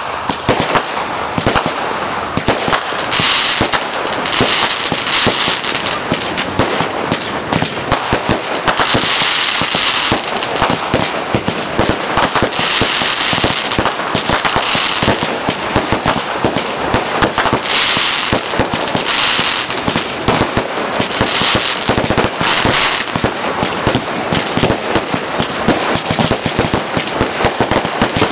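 Consumer fireworks cakes firing a continuous barrage: a dense run of shots launching from the tubes and bursting overhead, with swells of hiss every second or two.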